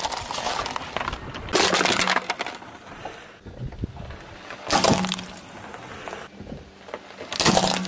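A car tyre rolling over and crushing small objects one after another, first a printed plastic bag and then a small plastic LED flashlight that cracks apart. Several sharp crunching, cracking bursts a couple of seconds apart.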